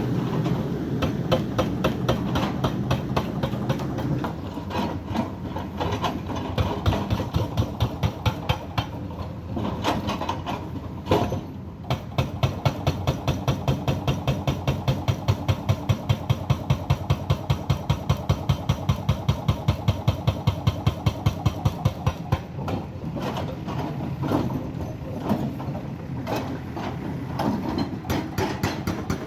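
Backhoe loader's diesel engine running with a rapid, even pulsing beat. It grows louder and more strongly rhythmic for several seconds in the middle.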